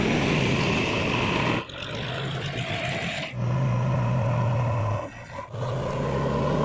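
Diesel engines of a tractor and a JCB 3DX backhoe loader running under load as the loader pushes soil with its front bucket: a loud, steady engine hum. The sound changes abruptly about one and a half and three and a half seconds in, and dips briefly about five seconds in.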